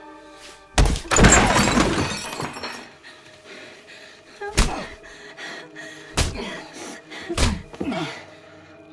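A heavy crash with a breaking, clattering rush lasting about a second and a half, then four sharp hard blows spread over the next few seconds, with faint cries between them: a man violently beating a woman, in film sound effects.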